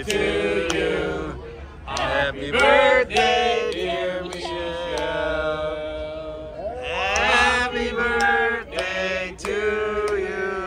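A group of waiters singing together in men's voices, a birthday song for a diner, with long held notes.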